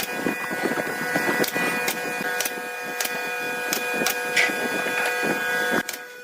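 A tool working wood with a rapid rasping, which stops shortly before the end, over background music with a steady beat.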